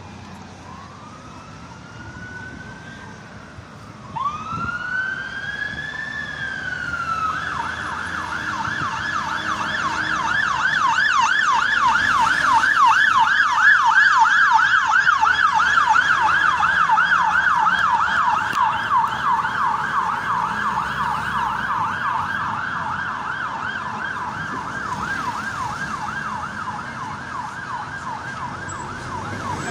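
Siren of a Dublin Fire Brigade turntable ladder fire engine on an emergency call: two slow rising-and-falling wails, then a fast yelp from a few seconds in that grows louder to a peak about halfway and slowly fades as the truck passes. City traffic runs underneath.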